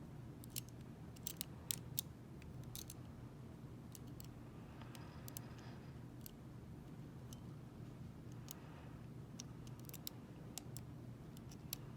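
Lock pick working the pins of a Zeni cabinet lock: irregular small metal clicks with a few faint scrapes, a cluster of quick ticks in the first two seconds and another near the end, over a low steady hum.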